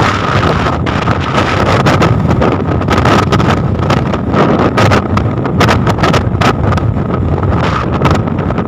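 Storm wind buffeting the microphone on a fishing boat at sea, gusting in quick irregular bursts over a dense low rumble of engine and sea, with a steady high whine held throughout.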